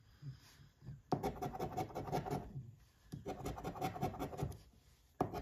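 A large metal coin scratching the latex coating off a paper scratch-off lottery ticket in quick strokes: two bursts of about a second and a half each, with a third starting near the end.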